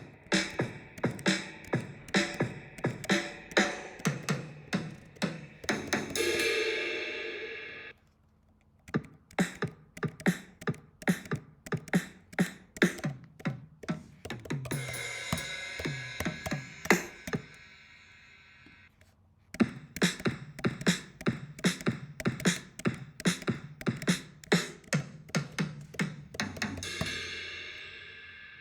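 GarageBand sampled drum kits playing three short drum grooves one after another. Each groove is a steady beat of kick, snare and hi-hat that ends on a ringing cymbal crash, with a brief pause before the next groove.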